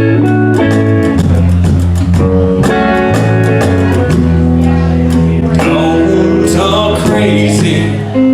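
Live band playing a country-rock song, with guitars over a steady bass line.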